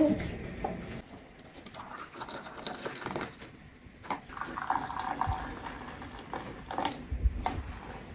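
Hot water poured from an Arçelik electric kettle into a glass of tea: a steady pouring sound that starts about four seconds in and lasts about three seconds. A few light knocks come before and during it.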